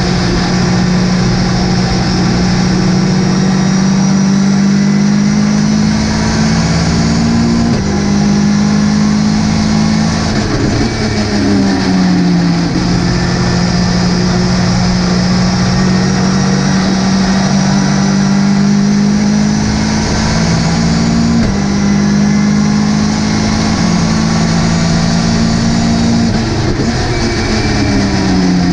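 Ginetta GT5 race car's engine under hard acceleration, its pitch climbing and then dropping sharply twice with upshifts, and twice falling away in stepped downshifts under braking, over steady road and wind noise.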